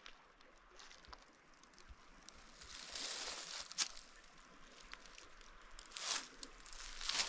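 Faint, muffled rustling and scraping with a few sharp clicks, from a handheld camera being handled and put away.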